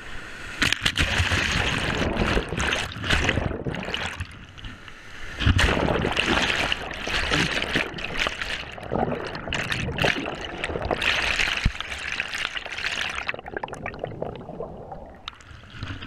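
Whitewater rushing and churning around a camera at water level, with irregular splashes and gurgles. Twice the bright hiss falls away briefly and the sound drops.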